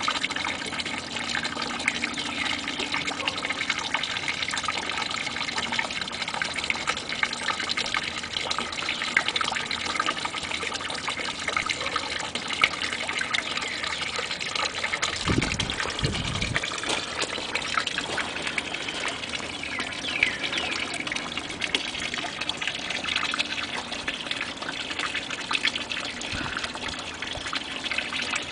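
Water running steadily into a garden pond, trickling and splashing, with two low thumps about halfway through.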